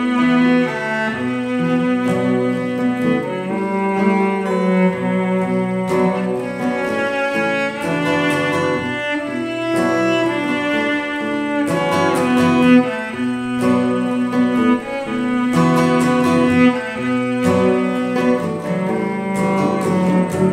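Instrumental break in an acoustic folk song: a cello plays a sustained melody over strummed acoustic guitars.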